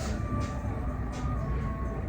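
Steady low rumble with faint background music, its soft high ticks recurring about once a second.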